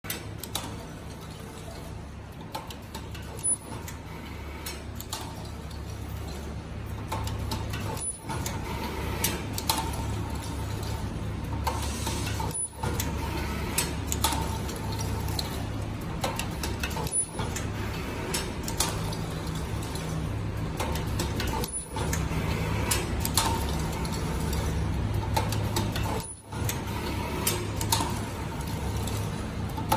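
Automatic ultrasonic zipper-cutting machine running with a steady hum under the clicks and clacks of its gripper and cutter. Its cycle repeats about every four and a half seconds, each cycle marked by a short high tone.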